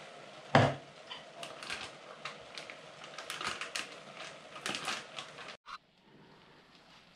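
A soft plastic milk bag being handled and crumpled, crackling irregularly, with one sharp knock about half a second in. The crackling cuts off suddenly near the end, leaving a low steady background.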